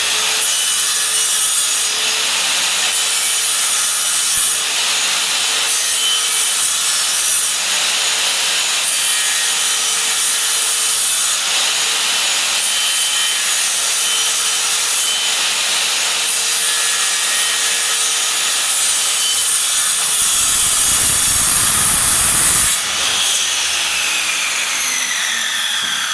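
Electric miter saw running at full speed and cutting wood, a loud, steady whine with a lower rumble for a couple of seconds about twenty seconds in. It is then switched off, and the motor and blade wind down with a falling pitch near the end.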